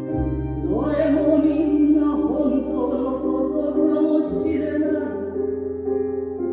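A woman singing, with held notes and short pitch glides, over sustained instrumental accompaniment with steady low bass notes, played back through a television.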